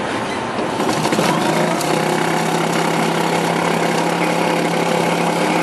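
QS-9J bowl chopper's electric motor switched on about a second in, rising to a steady hum as its blades spin and chop meat in the stainless steel bowl.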